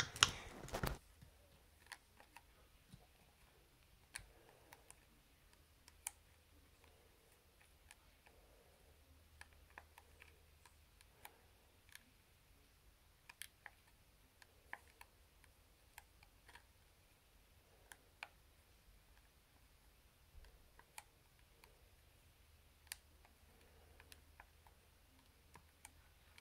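Near silence: room tone with faint, irregular small clicks and ticks, roughly one a second, after a short louder noise in the first second.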